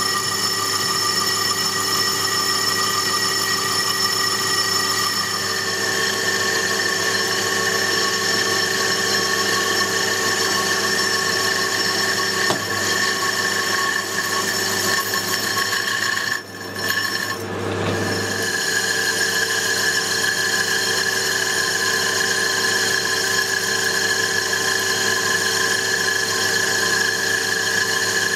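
Metal lathe turning the outside diameter of an aluminium disc with a triangular carbide insert: a steady machine whine with the hiss of the cut. The sound drops away briefly a little past halfway, then carries on as before.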